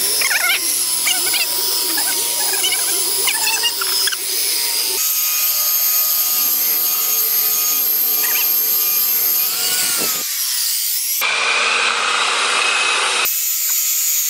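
Harbor Freight electric belt sander running with a steady motor whine as its belt sands a rough cottonwood plank. The sound changes abruptly at several cuts between clips.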